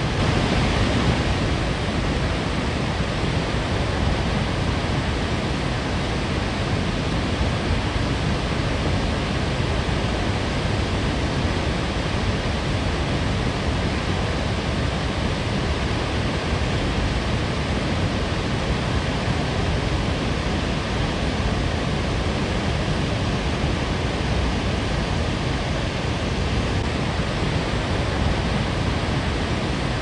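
Snoqualmie Falls, a 268-foot waterfall, pouring steadily: a constant, loud rushing of falling water.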